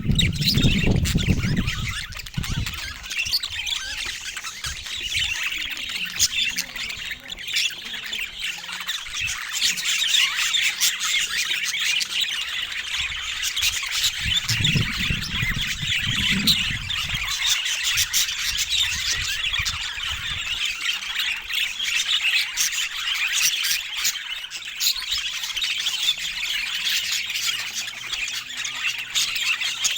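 Budgerigars chattering and squawking continuously in a dense flock chorus. Low rumbles come through at the start and again about halfway through.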